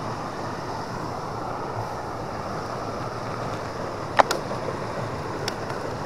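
Steady rush of water pouring over a small river weir. A sharp click cuts through about four seconds in, with a fainter one over a second later.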